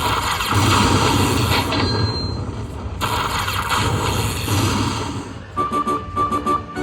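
Lightning Link slot machine sound effects and music: a dense, loud booming stretch, then about five and a half seconds in a run of short, rapidly repeated electronic beeps and chimes.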